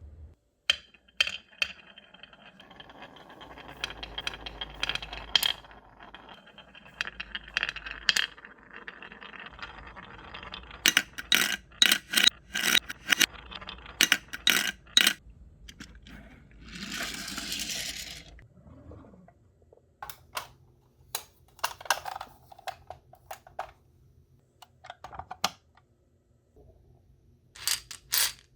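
Glass marbles rolling and clacking down a wooden marble run: a rumbling roll punctuated by sharp clicks, with a fast run of loud clacks near the middle and one longer rushing rattle a little later, then scattered knocks.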